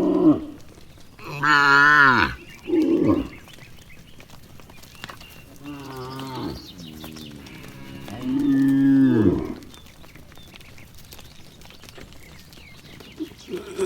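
Cattle mooing: about four separate moos in the first ten seconds, one of them fainter, and a long one near the ninth second whose pitch drops away at its end.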